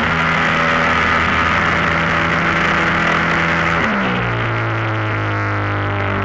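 Extreme Flight MXS 64-inch RC aerobatic plane's motor and propeller heard from its onboard camera over a steady rush of air. The motor runs at a steady pitch, then drops lower about four seconds in as the throttle comes back while the plane descends toward the field.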